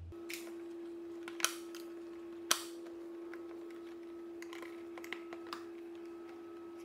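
A few sharp clicks and taps from hands fitting stripped wire ends into a small plastic switch connector, the two loudest about a second and a half and two and a half seconds in, over a faint steady hum.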